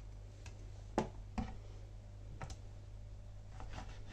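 Kitchen knife cutting orange pieces on a wooden cutting board: a few sharp taps as the blade strikes the board, the clearest about a second in, again just after, and once more midway, with fainter ticks between.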